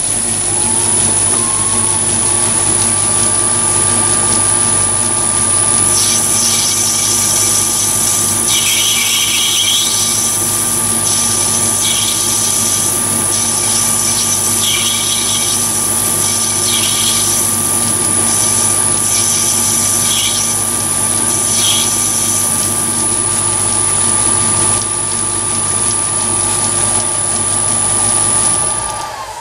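Chinese mini lathe starting up, its motor whine rising in pitch and settling, then running steadily with the chuck and brass workpiece spinning. A harsher, higher noise comes and goes several times in the middle. Near the end the whine falls away as the lathe is switched off and spins down.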